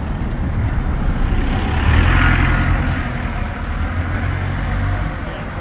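Diesel engine of a Stagecoach Optare Solo single-deck bus running as it pulls past close by, a steady low drone that is loudest about two seconds in.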